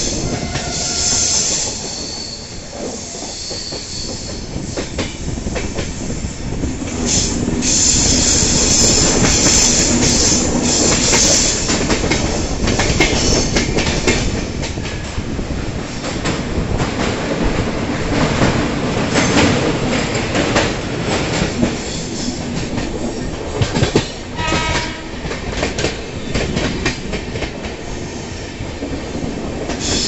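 Passenger train running on the track, heard from an open coach doorway: a steady rumble of the wheels with clicks over the rail joints, and a high wheel squeal that comes and goes, strongest about a third of the way in.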